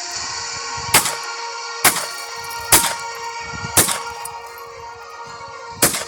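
Five sharp shots from a Walther P22 .22 LR pistol, roughly a second apart with a longer gap before the last, over steady background music.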